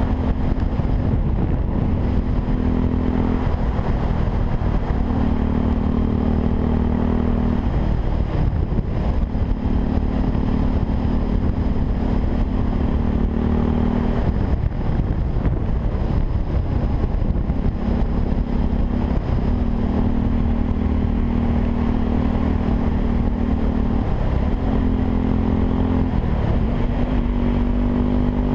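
Yamaha WR 125 R's single-cylinder four-stroke engine running through a Takkoni aftermarket exhaust. Its note holds steady for several seconds at a time, with short changes in revs every few seconds, over wind noise.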